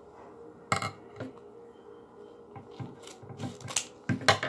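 A disposable hand warmer packet being cut open by hand: a run of short scraping, rasping cuts and rustles, more frequent in the second half.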